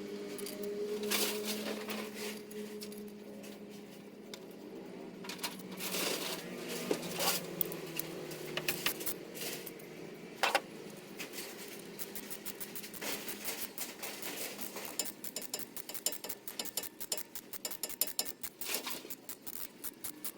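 Cylinder head bolts of a 4D56 diesel being run down by hand tool: scattered sharp metal clicks and knocks, then quick runs of ratchet clicking through the second half as the bolts are snugged before torquing.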